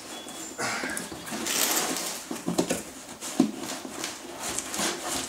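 A rain-soaked cardboard box being opened by hand: its flaps pulled back and the cardboard rustling and scraping, with a few light knocks.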